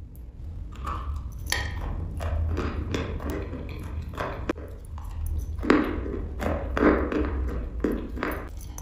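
Chewing and crunching a mouthful of dry eating chalk close to the microphone: irregular crunches, with a few louder bites in the second half.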